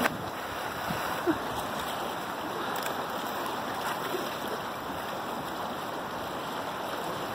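Steady rush of wind and choppy sea water around the bathing pier, with a short splash of a swimmer entering the water right at the start.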